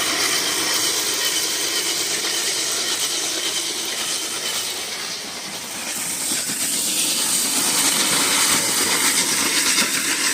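Traxxas TRX4 RC truck with its stock electric motor running, gears whining and tyres scrubbing as it spins in circles. It dips briefly about five seconds in, then picks up again.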